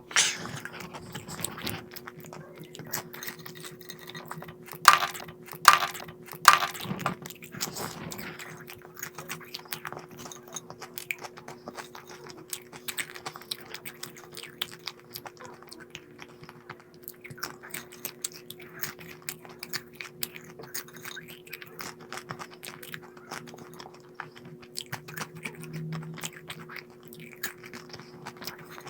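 A person chewing crunchy snack food close to the microphone, a long run of small crackling crunches with three loud bites about five to seven seconds in. A steady low hum sits underneath.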